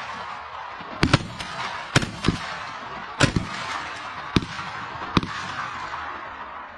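A rapid volley of gunshots, about eight within some four seconds, a few of them coming in quick pairs.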